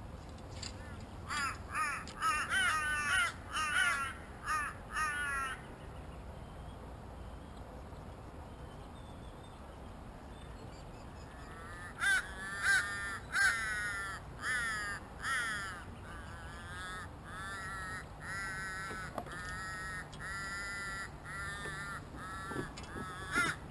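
A crow cawing in two runs of repeated calls, each caw falling in pitch: about eight in the first few seconds, then a longer, more even series from about halfway on.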